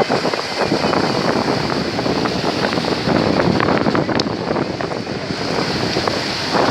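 Sea surf washing onto the shore, with wind buffeting the microphone.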